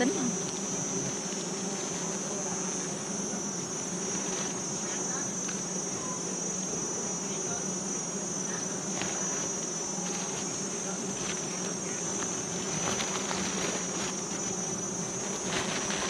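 Wild honeybees from a disturbed hive buzzing around in a steady swarm hum, with a thin, steady high-pitched insect tone above it.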